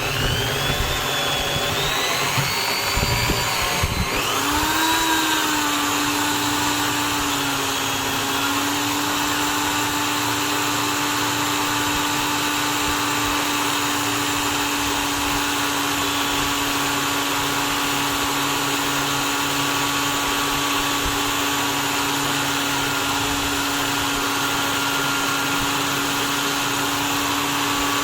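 An electric drill motor starting up and running. Its speed rises and wavers over the first few seconds, then it settles into a steady hum.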